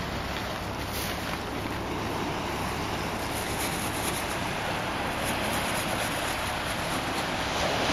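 Steady wind rumbling on the microphone over the wash of small waves on a pebble and rock shore.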